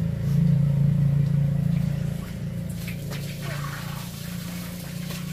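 A motor running with a steady low hum, loudest in the first two seconds and then easing off, with a few light knocks about three seconds in.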